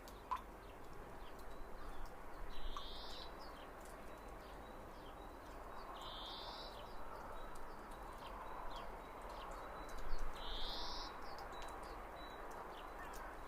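Spring outdoor ambience: a bird gives a short rising call three times, about every three to four seconds, over a soft steady hiss, with a few faint chirps and a thin steady high whine.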